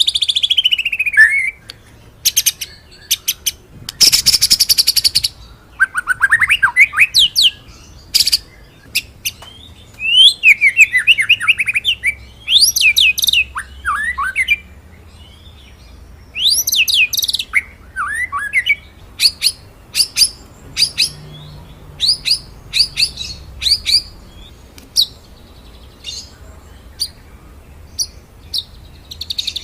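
White-rumped shama (murai batu) singing a varied song: loud whistled phrases that sweep down in pitch, rolling buzzy trills, and runs of short, sharp 'shooting' notes.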